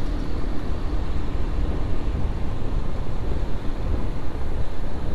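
Motorcycle riding along a road: a steady rush of wind on the microphone over the running engine, with no sharp events.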